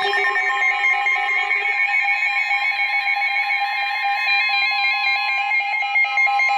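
Emergency Alert System alert tones: several steady electronic tones with rapidly stepping higher tones over them, signalling the start of a new weather alert broadcast.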